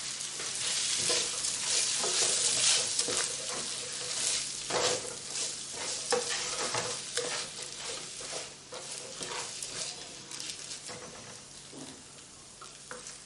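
Onions, garlic and peppers sizzling in olive oil in a frying pan while being stirred, with scrapes and taps of the utensil against the pan. This is the fried vegetable base of a paella. The sizzle is louder in the first half and dies down toward the end.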